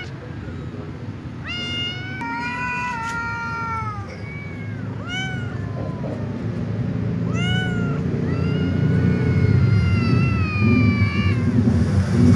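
Tomcats meowing and yowling at each other in a standoff: a string of drawn-out calls, several short and arched, then one long call of about three seconds that slowly falls in pitch. A steady low rumble runs underneath.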